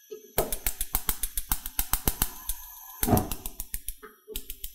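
Gas burner igniter clicking rapidly, about seven sharp clicks a second, in a long run and then two short runs.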